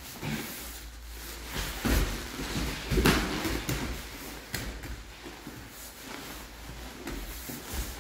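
Two grapplers in gis scrambling on foam mats: cloth rustling and bodies scuffing and shifting against the mat, with two louder thumps about two and three seconds in.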